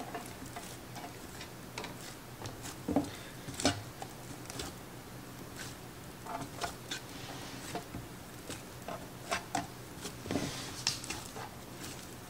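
Hands pressing and tucking bread dough down into a metal loaf pan: faint, irregular taps and clicks of fingers against the pan, with a couple of louder knocks about three to four seconds in.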